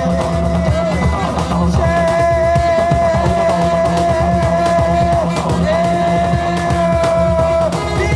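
Live band playing over a loud PA: drums and a steady bass under a long held high melody note that breaks off briefly twice and comes back.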